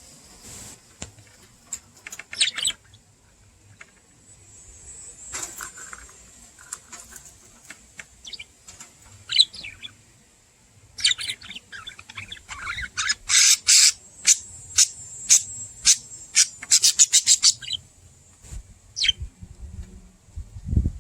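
A pair of budgerigars chirping and chattering, the happy chatter of contented pet budgies: scattered short chirps at first, then a quick run of rapid chirps about halfway through that lasts several seconds.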